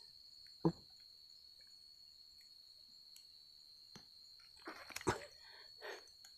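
Crickets chirring in a steady, high, even tone. A sharp thump comes about two-thirds of a second in, and a cluster of knocks and rustles follows about five seconds in.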